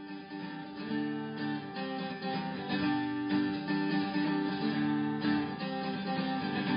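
Background music led by a plucked acoustic guitar playing a gentle run of notes.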